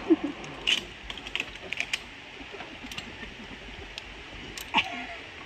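Irregular metallic clicks and clinks of zip-line gear (carabiners, trolley and cable hardware), a few of them sharper and louder.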